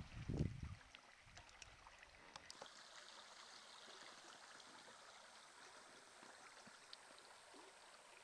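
Near silence: faint, steady sound of river water flowing, with a few low thumps in the first second.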